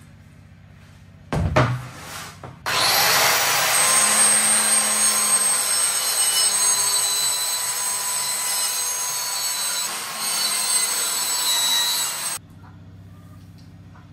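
Electric saw cutting a thin wooden board: a knock, then the saw runs steadily with a high whine for about ten seconds and stops abruptly.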